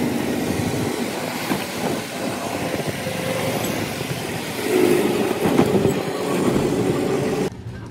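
Riding in an open-sided rickshaw: steady road noise and wind rushing past, with the frame and canopy rattling over the road surface. A humming tone joins about two-thirds of the way through.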